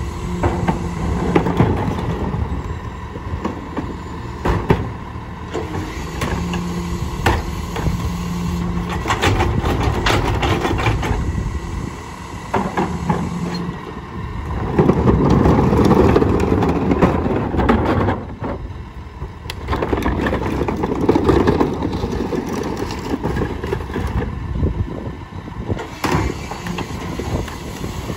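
Rear-loader garbage truck's diesel engine running while trash carts are tipped into the hopper, with many knocks and clatters of carts and trash. There are two louder stretches of a few seconds each, about halfway through and again shortly after, typical of the engine speeding up as the packer compacts the load.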